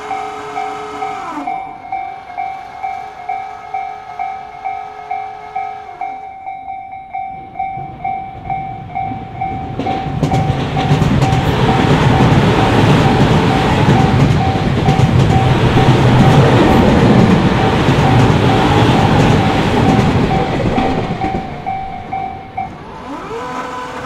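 Japanese level-crossing bell ringing in a steady repeating ding, about one and a half strikes a second, while the barriers are down. About ten seconds in, a Tobu Tojo Line electric commuter train passes with a loud rumble of wheels on rails for about ten seconds; the bell stops near the end as the barriers rise.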